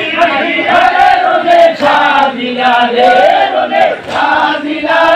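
A loud group of men's voices chanting a Bengali jari song together, voices overlapping, with sharp regular beats keeping time.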